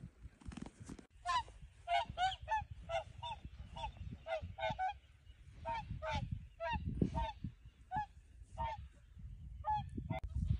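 Wild geese calling: a run of short, pitched honks, about two a second, beginning about a second in.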